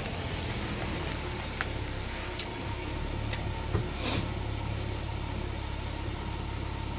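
An engine idling steadily, its low hum growing louder about two and a half seconds in, with a few faint clicks over it.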